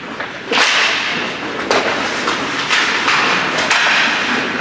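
Ice hockey skate blades scraping and carving across the ice, with stick clacks, in a series of sharp hissing strokes about a second apart after a faceoff.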